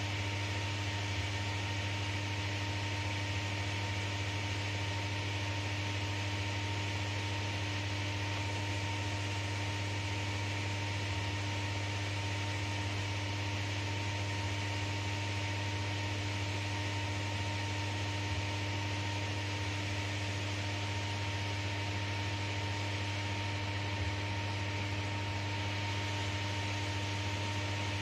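Steady electrical hum with an even fan-like hiss inside an enclosed Ferris wheel cabin, from the cabin's heating and air-conditioning unit. It holds unchanged throughout.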